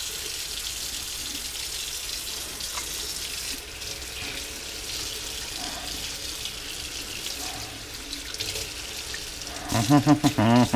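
Kitchen tap running steadily into a sink while a knife is washed under the stream.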